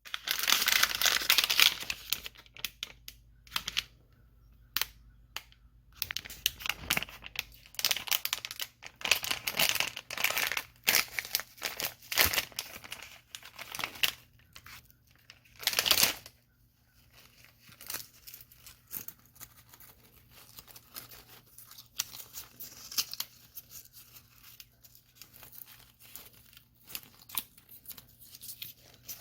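Irregular bursts of rustling and crinkling, loudest in the first half and thinning to scattered crackles later, over a faint steady low hum.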